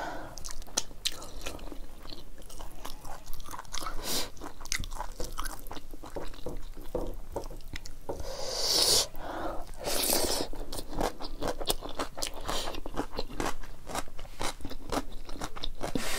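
Close-up chewing and crunching of buffalo sikuti (dried buffalo meat) and rice eaten by hand, with many small wet mouth clicks. One louder, longer noise comes about nine seconds in.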